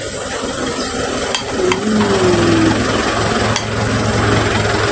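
A metal spoon clicks a few times against the plate and food, over a rushing hiss that swells through the middle.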